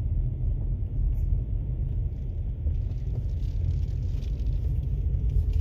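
Steady low rumble of a vehicle in motion, engine and road noise with no distinct events.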